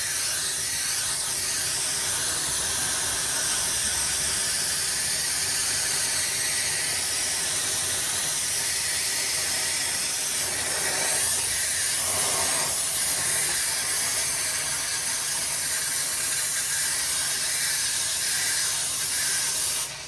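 Gas torch flame hissing steadily as it heats the outer exhaust pipe at the muffler joint, expanding it to free the tailpipe.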